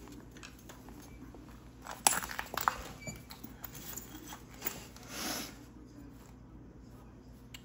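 Small sharp clicks and light taps of a chert point and knapping tools being handled, with a cluster of clicks about two seconds in and a brief soft rustle about five seconds in.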